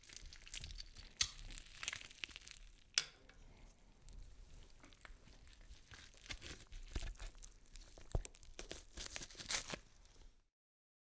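Irregular crackling and crunching, like something being crumpled or torn, with sharp snaps among it and one louder snap about three seconds in; it cuts off into dead silence near the end.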